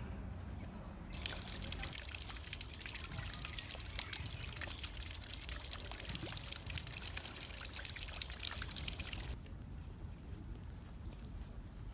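Water splashing and trickling with a dense, crackling hiss. It starts abruptly about a second in and cuts off abruptly near the end.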